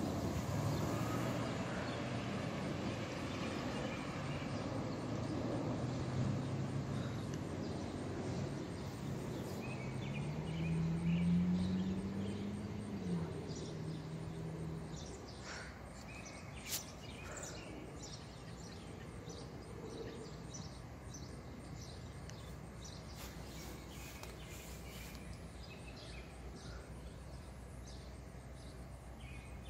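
Low engine rumble that fades over the first half. About eleven seconds in, one engine rises in pitch and then drops off abruptly, like a motor vehicle pulling away and shifting gear. After that, quieter outdoor background with a few bird chirps and a single click.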